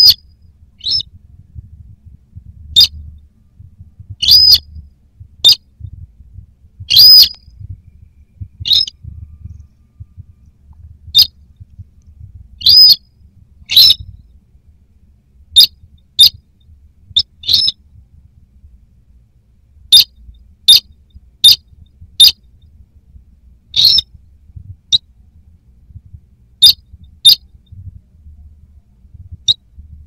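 Buff-banded rail (burung sintar) calling: short, sharp, high-pitched notes repeated at irregular gaps of about one to two seconds, a few with a brief downward slur. It is a bird-lure recording of the call, played to draw the birds in.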